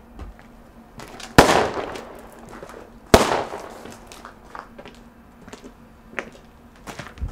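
Two sharp, loud bangs about a second and three-quarters apart, each trailing off with a drawn-out echo, followed by a few faint knocks.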